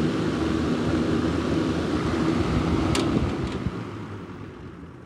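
1978 Lakewood S14X box fan, Fasco motor with metal blades, running on high with a steady rush of air and a faint hum. About three seconds in there is a sharp click, and the fan then winds down gradually, as it does when it is switched off.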